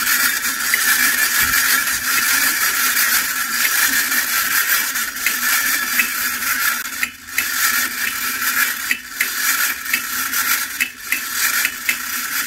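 Tin toy drumming rabbit running: its mechanism whirs steadily while the drumsticks tap the little tin drum in quick, uneven clicks. The whir dips briefly a few times.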